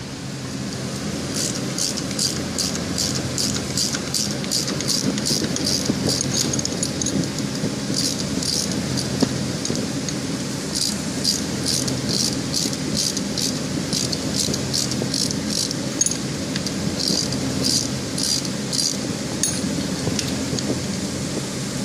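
Quick light metallic taps, about three a second in runs of several seconds with short pauses, from a hammer striking a steel rod held against a steel pipe flange. A steady low machinery hum runs underneath.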